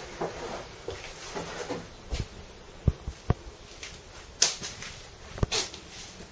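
Scattered knocks and soft thumps, about half a dozen at uneven intervals, from someone moving about and handling things in a small room. The sharpest knock comes about four and a half seconds in.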